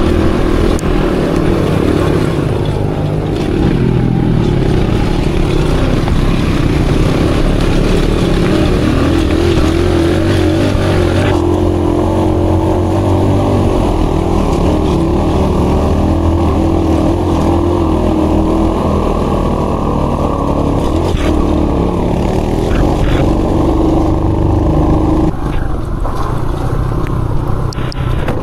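Aveta Ranger Max off-road motorcycle's engine running as it is ridden along a trail, its pitch rising and falling with the throttle. It gets a little quieter near the end.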